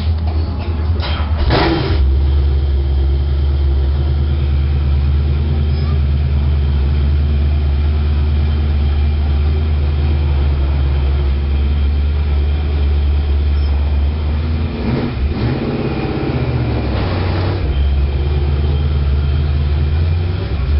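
V8 engine of a Race Car Series stock car idling loudly and steadily, with short revs about a second and a half in and again around fifteen to seventeen seconds in.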